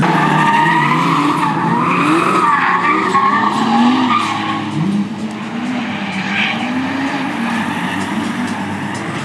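Drift car sliding: the engine revs rise and fall while the tyres squeal and skid.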